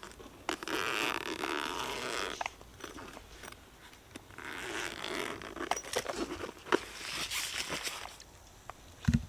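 Zipper of a padded coated-fabric carrying case being pulled open in two long runs around its edge, with small clicks of handling between them. A low thump just before the end.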